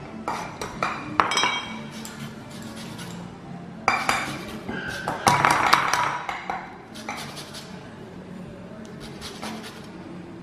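Small wire whisk clinking and scraping against a glass bowl as egg and sugar are whisked together, in quick irregular clinks.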